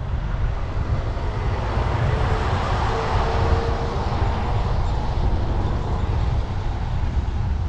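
A semi truck passing close by, its rumble and tyre hiss swelling in the middle and fading. Wind buffets the microphone throughout.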